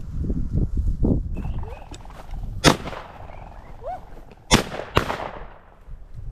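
A covey of Mearns quail flushes with a rush of wing noise, followed by three shotgun shots, the last two about half a second apart and the loudest.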